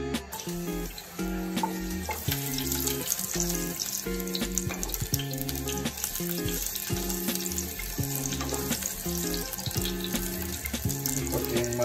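Garlic sizzling in hot oil in a small saucepan as it is stirred with a wooden spatula, the sizzle growing louder about two seconds in. Background music with a steady pattern of notes plays underneath.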